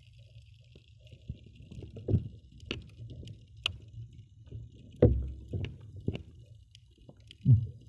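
Underwater sound of a camera moved through shallow seawater: a low muffled rumble of water with irregular thumps of handling against the camera, the loudest about five seconds in, and a couple of sharp clicks.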